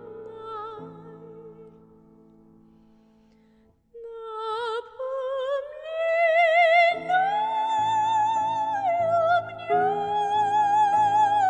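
Operatic soprano singing with wide vibrato over held accompaniment chords. A sung note fades away, and after a brief pause about four seconds in she comes back in and climbs to long, high held notes.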